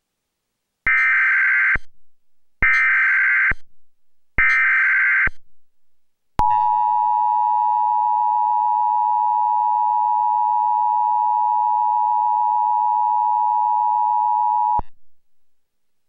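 Emergency Alert System SAME header: three identical bursts of warbling digital data tones, each about a second long, coding a tornado warning. About six seconds in comes the EAS two-tone attention signal, a steady tone that holds for about eight seconds and then cuts off abruptly, announcing the voice message.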